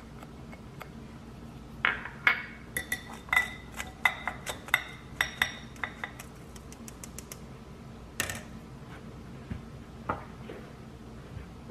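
A spatula tapping and scraping inside a stainless-steel mesh sieve as flour is sifted through it: a quick run of sharp, ringing metallic taps for about five seconds, then one louder clatter and a single light knock.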